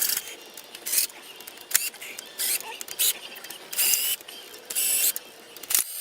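Socket ratchet clicking in short bursts, about eight strokes a little over one a second, as loosened cylinder head bolts are backed out.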